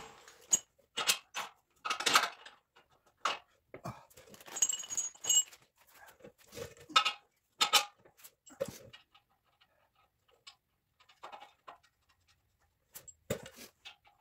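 Steel bolts and suspension brackets clinking and knocking as a bolt is worked through a front-suspension mounting bracket. Irregular short metallic taps, a few ringing briefly about five seconds in, and quieter for a few seconds near the end.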